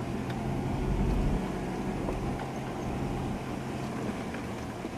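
Ford 4x4 driving slowly over a rough dirt track, heard from inside the cabin: a steady low engine hum with tyre and road noise, a low thud about a second in, and a few faint clicks and rattles.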